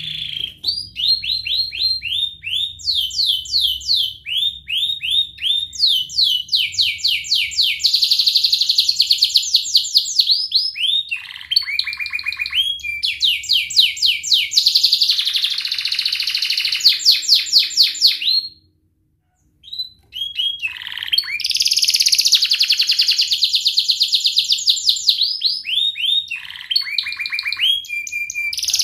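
Domestic canary singing a long song made of fast trills, each phrase a rapid run of the same note repeated many times. It stops for about a second and a half around two-thirds of the way through, then starts again.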